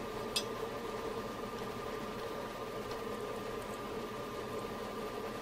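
Steady background hum and hiss with a constant high tone, and one light click of small mounting hardware being handled about half a second in.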